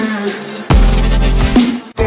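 Electronic outro music with a heavy bass line that kicks in under a second in and drops out briefly near the end.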